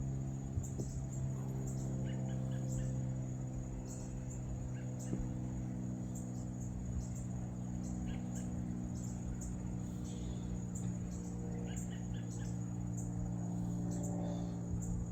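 A steady low hum with a stack of even overtones, like a running motor or machine. Over it, insects chirp in short high-pitched pulses, one or two a second.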